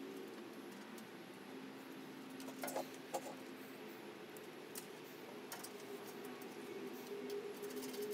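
Faint clicks and light knocks of metal cart parts being handled and fitted together, the clearest two close together about three seconds in, over a faint steady hum.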